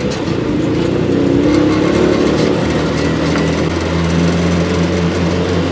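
Motor tricycle's engine running under way with a load of sand. Its pitch shifts in the first couple of seconds, then settles into a steady low drone.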